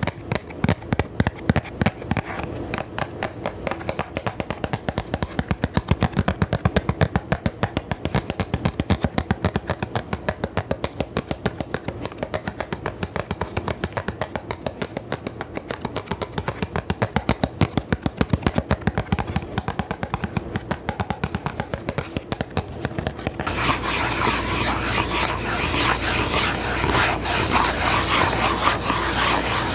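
ASMR trigger sounds: rapid, evenly spaced tapping, several taps a second, then a sudden switch near the end to a dense, louder scratching and rubbing noise.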